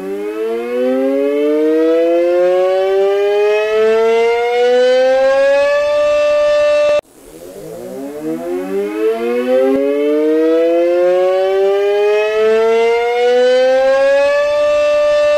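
Outdoor severe weather warning siren winding up in a long rising wail and holding a steady tone. It cuts off abruptly about seven seconds in, then winds up again and holds near the end.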